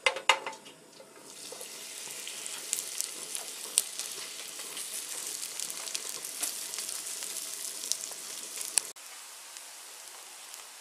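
A few sharp knocks of a utensil against a frying pan, then hot oil sizzling and crackling as kimchi pancake (kimchijeon) batter is spooned into the pan and fries. About nine seconds in the sizzle drops suddenly to a quieter, steady sizzle.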